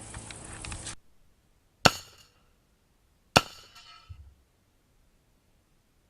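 Two sharp cracks about a second and a half apart, each trailing off in a brief ringing.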